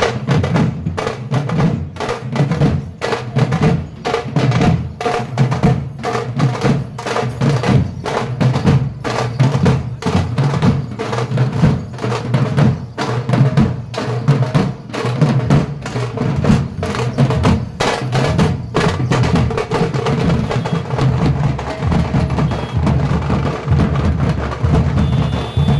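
Drums beaten in a fast, continuous rhythm, with dense sharp strikes over a heavy low beat.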